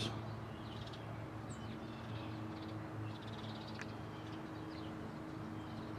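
Faint bird calls, a few short chirps, over a steady low hum.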